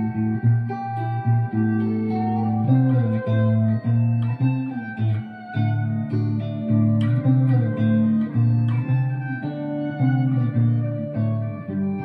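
Electric guitar played solo, clean: low bass notes ringing under plucked higher notes, changing about every half second to a second.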